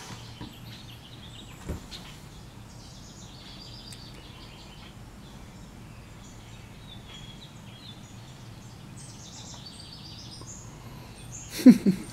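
Outdoor background with small birds chirping on and off throughout. Near the end comes one short, loud, low vocal sound.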